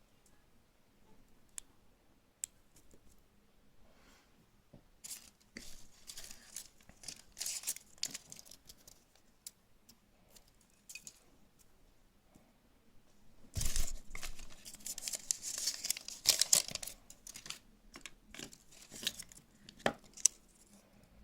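Thin foil wrapper being torn open and crinkled off a Kinder Surprise chocolate egg, in two spells of crackling, with scattered small clicks between them.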